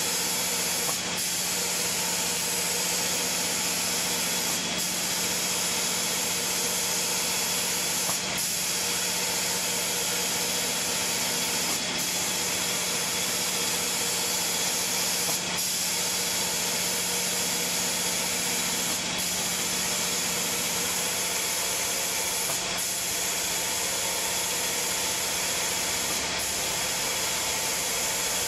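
Automatic wood-door spray-painting machine at work: a steady hiss of its air-atomising spray guns over a steady machine hum, the hiss breaking briefly about every three and a half seconds.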